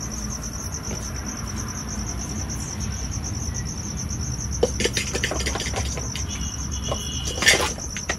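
Crickets chirping steadily in a fast, even pulsing trill. From about halfway there are a few clicks and knocks, with one louder clatter near the end, as pots and a container are handled.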